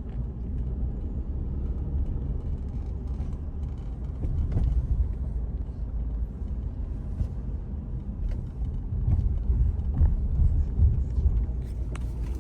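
A car on the move: a steady low rumble of road and engine noise with a few faint clicks.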